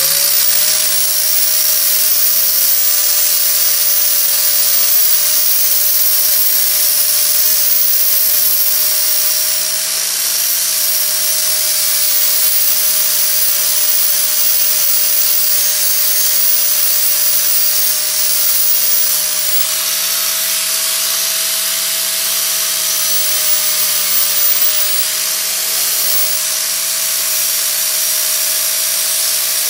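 A high-speed power tool spins up and then runs steadily with an abrasive hiss, cleaning up the trimmed edges of a steel motorcycle chain guard. Its whine wavers slightly now and then.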